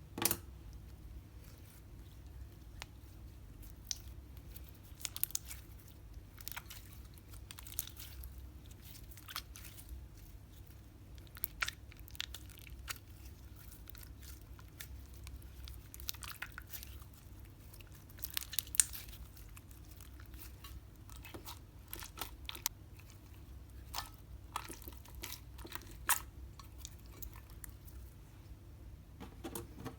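Slime being squeezed and mixed by hand, making irregular sharp clicks and small pops over a faint steady hum.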